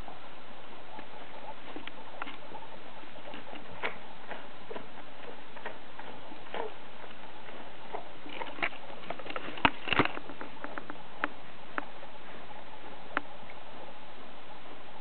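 Old English Sheepdog puppies eating: scattered small clicks and taps, with a quick flurry of louder ones about nine to ten seconds in.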